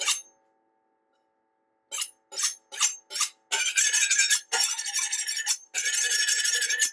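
Kitchen knife being honed on a sharpening steel. One stroke sounds at the start, then after a pause come four short quick strokes and three longer ones, each scraping along the rod with a metallic ring.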